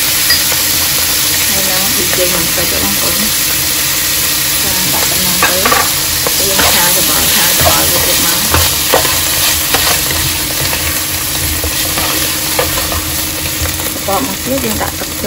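Chicken pieces and mushrooms sizzling as they stir-fry in a non-stick wok, with a plastic spatula stirring and scraping them. Sharp clicks of the spatula against the pan come thickest between about five and ten seconds in.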